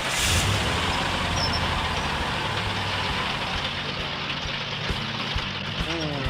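Heavy truck engine running with a steady rumble, opening with a short burst of hiss.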